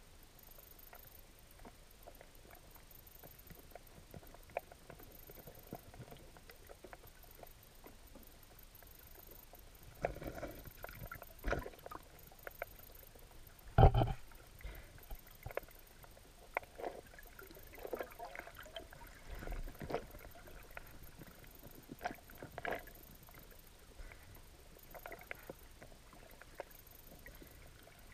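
Irregular clicks, knocks and scrapes picked up by an underwater camera as a ray feeds on a dead fish right against it, stirring up the seabed. The knocks start about a third of the way in, with one loud thud near the middle.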